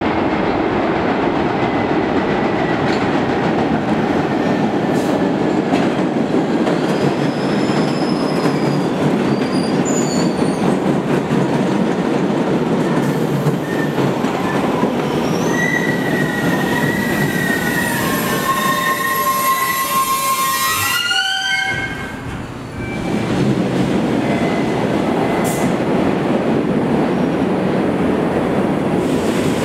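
MBTA Red Line subway train rumbling along the rails through the station. High metal squeals come in about halfway through and rise in pitch before the sound cuts off suddenly. A steady rumble then picks up again, with one sharp click.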